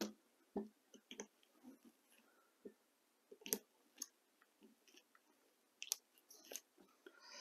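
Faint, scattered clicks and taps, about eight in all, as mock shells are pushed one by one into the chambers of a break-top Schofield airsoft revolver's cylinder. The sharpest clicks come at the start and about three and a half seconds in.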